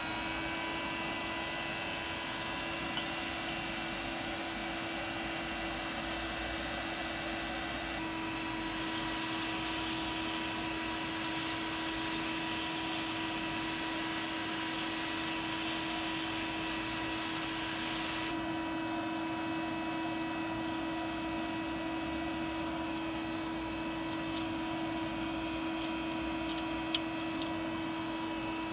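Leister hot-air blower running steadily, its motor holding one steady hum under a rush of air, while blowing 400 °C air onto a circuit board to pre-heat it. About eight seconds in, the hiss of the air grows louder for some ten seconds, then drops back; a single click near the end.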